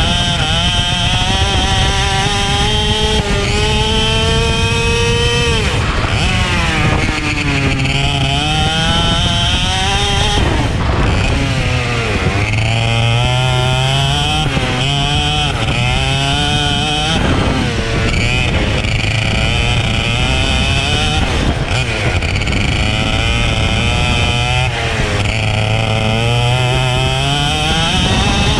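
Racing kart engine under hard acceleration, its pitch climbing for several seconds at a time and then dropping sharply off the throttle, about five times over.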